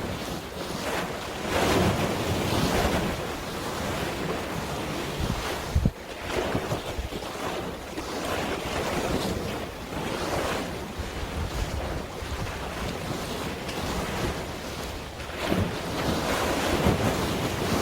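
Wind gusting across the microphone over the wash of sea waves, swelling and easing unevenly, with a short knock about six seconds in.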